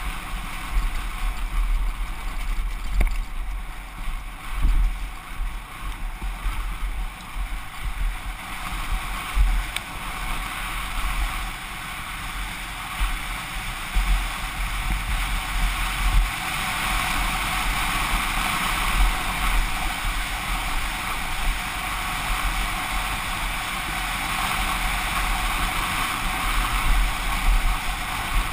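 Wind buffeting a helmet-mounted GoPro on a downhill mountain bike descent, a steady rush with a heavy low rumble, mixed with the bike rattling and knocking over a rocky trail.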